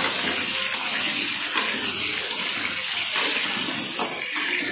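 Potato chunks sizzling steadily in hot mustard oil in an aluminium kadai, stirred with a metal spatula, with a few light scrapes and taps of the spatula on the pan.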